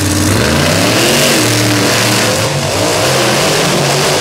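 Two monster trucks launching side by side in a drag race, their engines revving hard, the pitch climbing as they accelerate away.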